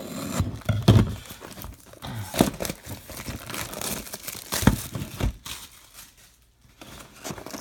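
Plastic shrink wrap crinkling and tearing as it is pulled off a trading-card hobby box, with a few sharp crackles; it goes quiet about six seconds in.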